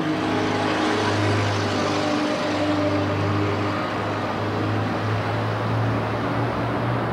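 A steady low mechanical hum under an even wash of noise, like a running engine or machine.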